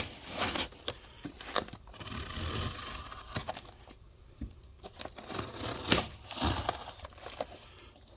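A package being opened by hand: crinkling and tearing of packaging, with scattered sharp clicks and rustles.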